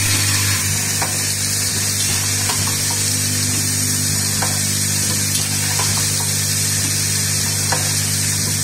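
Automatic screw assembly machine running: its vibratory bowl feeder buzzes steadily with the screws rattling in the bowl, and a few light clicks come from the feed and assembly mechanism.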